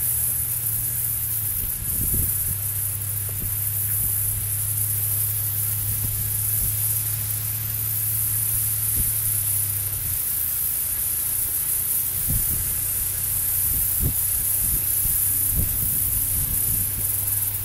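Soft background music of long held low notes, which change pitch about two seconds in and again around ten seconds, under a steady high hiss.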